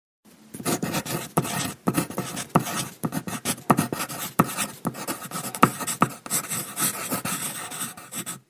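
A pen scratching across paper as it writes, in short irregular strokes with sharp ticks, stopping just before the end.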